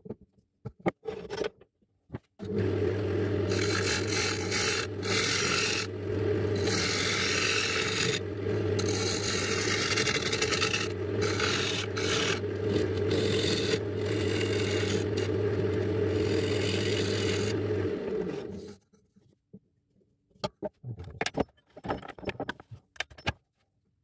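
A lathe motor hums steadily while a tool scrapes the spinning paduk wood for about sixteen seconds, then it stops. Scattered clicks and knocks from handling come before and after.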